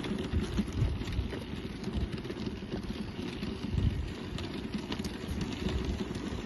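Wind buffeting the microphone outdoors: an irregular low rumble that swells and fades in gusts, with faint scattered clicks.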